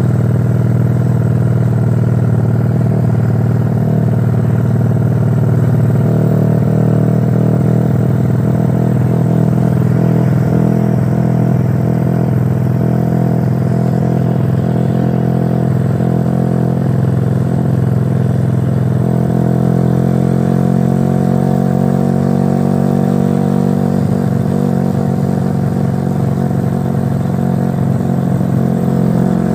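Yamaha LC135 V1 single-cylinder four-stroke engine, built up to 'spec 62', running under way with its exhaust note steady while cruising, the engine speed creeping slowly up over the second half.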